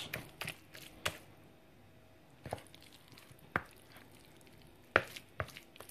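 Small wooden pestle pressing and knocking into a bowl of boiled, mashed garden eggs and pepper: seven or so short knocks at uneven intervals, with quiet in between.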